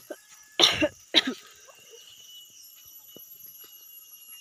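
A person coughing twice, two short harsh coughs about half a second apart.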